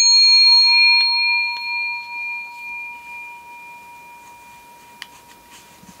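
Small brass hand bell ringing after a single strike, rung as the programme's closing bell. It gives a clear ringing tone whose higher overtones die away within a few seconds while the main tone lingers and slowly fades. A few faint clicks come near the end.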